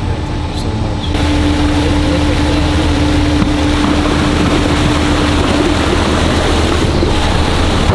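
Floodwater gushing out of a pickup truck's cab through the opened driver's door and splashing onto the ramp, starting about a second in. Under it runs the steady low hum of the tow truck's engine, with a steady whine that stops about two-thirds of the way through.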